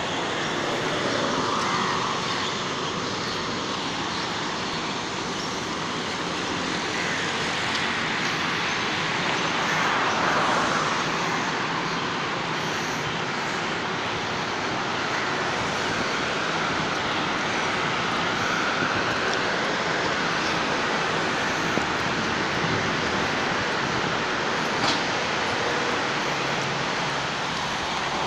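Steady city traffic noise, with vehicles swelling past now and then.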